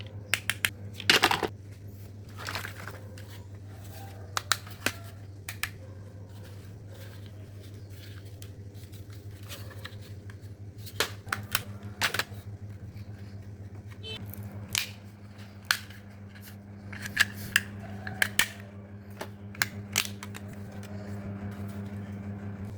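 Old plastic toys being rummaged and handled: scattered sharp clicks, knocks and rattles over a steady low hum.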